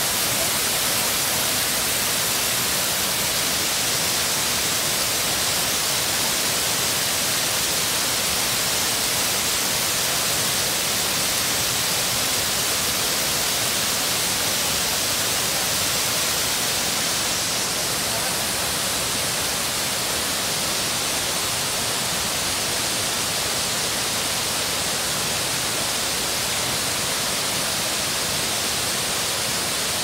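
Waterfall's falling water rushing steadily, an even hissing wash of noise with little bass.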